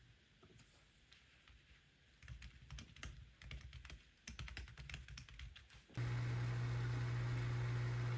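Typing on a white low-profile Apple keyboard: quick, irregular key clicks, sparse at first and thick from about two seconds in. About six seconds in the typing gives way suddenly to a much louder steady hum with hiss over it.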